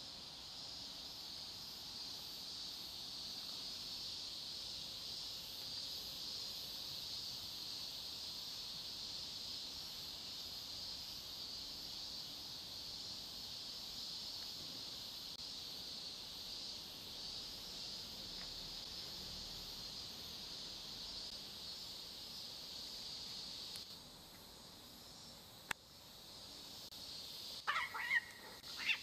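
A steady high-pitched drone in the background, which stops about four-fifths of the way in. Near the end, stray cats fighting on a road start yowling loudly.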